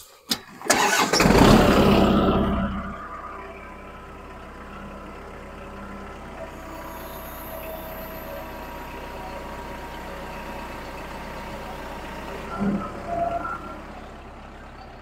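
Kubota tractor's diesel engine cranking and catching with a loud burst about a second in, then settling into a steady idle. A couple of brief knocks near the end.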